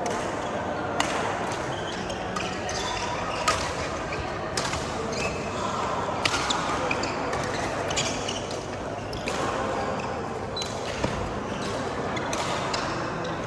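Badminton rackets hitting a shuttlecock in a rally: sharp cracks about every second or so, with players' shoes and low chatter underneath.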